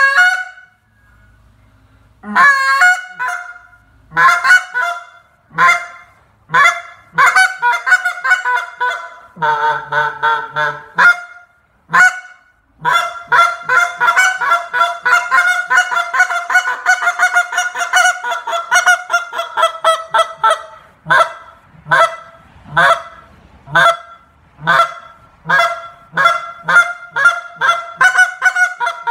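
Acrylic goose call blown by hand, giving goose honks. At first the honks come singly about a second apart, then they run into a long string of fast, rapid notes through the middle, and then come quicker separate honks and clucks, about two a second, near the end.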